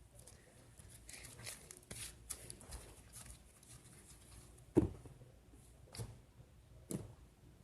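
Daiso clay slime being squished and stretched by hand: faint sticky crackling with a few sharp clicks, the loudest about five seconds in.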